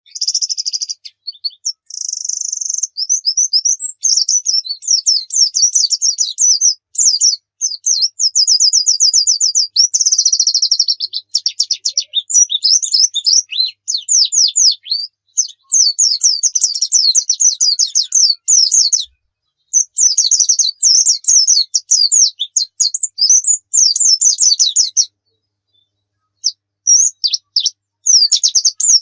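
White-eye (pleci) singing: fast runs of high, thin chirps and trills with quick up-and-down notes, broken by a short pause about two-thirds through and a longer one near the end.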